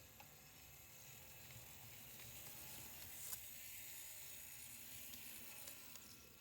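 Kato EF64 1000-series N-scale model electric locomotive running on track: a faint high whir with small clicks from the wheels. It grows louder toward the middle and fades near the end, running without abnormal noise.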